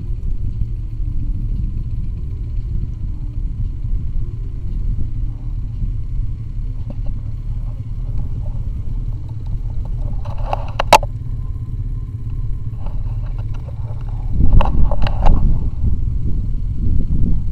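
IZh Jupiter-5 motorcycle's two-stroke twin engine running steadily while riding. There is one sharp knock about two-thirds of the way through, and a louder burst of rattling and clatter near the end.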